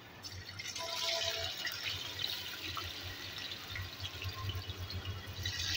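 Raw potato sticks going into hot oil in a frying pan, the oil sizzling and crackling around them. The sizzle starts just after the beginning, swells about a second in, and surges again near the end.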